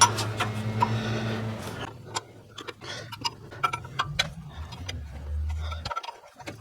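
Irregular sharp metal clicks and taps of a 19 mm wrench on the hex of a coolant temperature sensor as it is worked loose.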